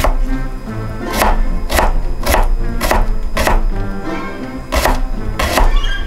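Chef's knife chopping an onion on a wooden cutting board: sharp knocks of the blade on the board, about two a second, with a short pause a little past the middle.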